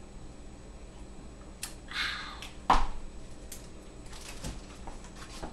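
Light clicks and taps from a plastic water bottle being handled at an open refrigerator, with one sharper knock a little under three seconds in.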